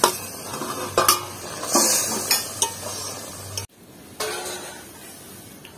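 Fried paneer cubes tipped from a steel bowl into a kadai of boiling gravy, with a spoon knocking and scraping on the metal and the gravy bubbling and sizzling. About three and a half seconds in, the sound drops suddenly to a quieter background.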